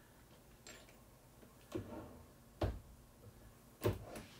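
Brass 338 Lapua cases and a single-stage reloading press giving four separate sharp clicks and knocks, metal on metal, as cases are set into and taken out of the shell holder during neck sizing; the last two knocks are the loudest.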